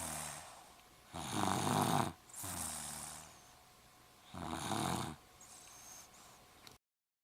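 Snoring in a slow breathing rhythm: two loud snores about three seconds apart, each followed by a quieter breath. The sound cuts off suddenly near the end.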